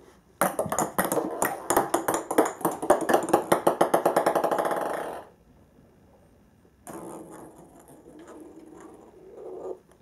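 Small plastic ping-pong balls dropped on a wooden floor, clattering and bouncing with quickening bounces that run together into a rattle before dying away. A second, quieter stretch of ball rattling follows about seven seconds in.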